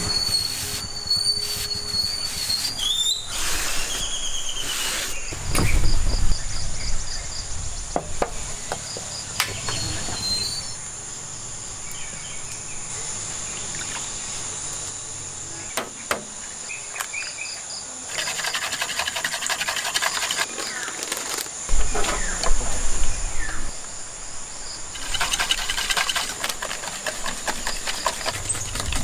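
Steady high buzz of crickets with scattered bird chirps in the first few seconds. A wire whisk beats pancake batter in a plastic bowl in two spells of fast repeated strokes, near the middle and near the end, with a couple of low thumps on the table.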